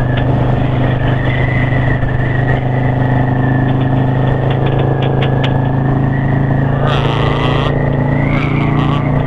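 Yamaha V-Star 650's air-cooled V-twin engine running at a steady cruise, its pitch holding level with no revving, heard from the rider's seat along with rushing wind on the microphone.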